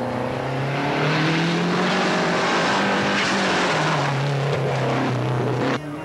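Lancia Delta HF Integrale rally car under hard acceleration, its turbocharged four-cylinder engine rising in pitch as it approaches, then dropping in steps as it passes. The sound cuts off abruptly near the end.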